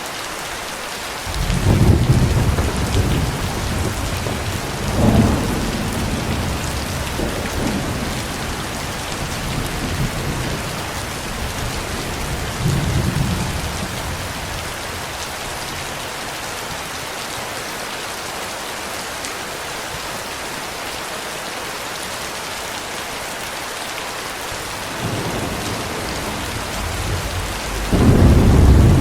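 Steady heavy rain with rolling thunder. The thunder starts up loudly about a second and a half in and rumbles on in several swells, dies away through the middle, then builds again from a quieter rumble into a loud peal near the end.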